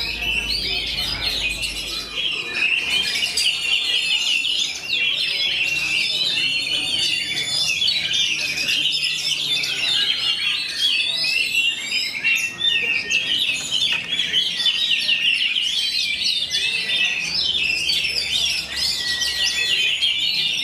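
Oriental magpie-robins (kacer) singing together: a dense, continuous run of quick overlapping whistles, trills and chirps.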